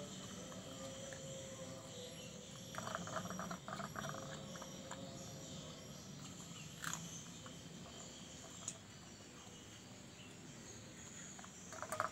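A dog eating from a metal plate on the ground: bursts of rapid chewing and licking clicks about three seconds in and again near the end. Under it runs a steady chorus of insects.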